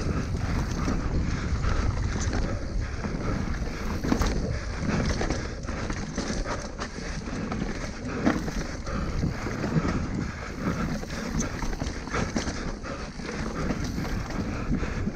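Mountain bike descending a dirt and rock trail at speed: wind rumbling on the microphone, tyres rolling over dirt, and frequent short knocks and rattles from the bike over bumps.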